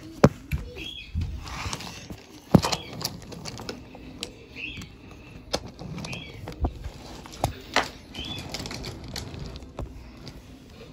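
Handling noise close to the microphone: irregular clicks, taps and rubbing of a toy being moved about on a wooden floor, with the sharpest knocks near the start and about two and a half seconds in.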